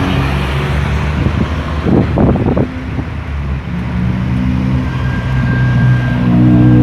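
Road traffic: motor vehicle engines running as cars pass. One vehicle gets louder near the end as it approaches.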